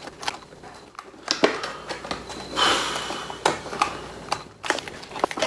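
Plastic action-figure packaging being handled as stiff twist ties are untwisted from a plastic tray: scattered sharp clicks and crinkles of plastic, with a longer rustle about halfway through.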